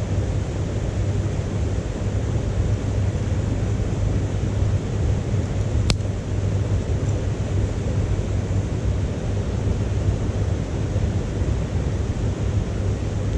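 Wood fire burning in a titanium wood stove: a steady rushing noise, with one sharp crackle of burning wood about six seconds in.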